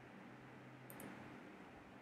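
Near silence: faint room tone with a steady low hum, and a quick double click, like a computer mouse, about a second in.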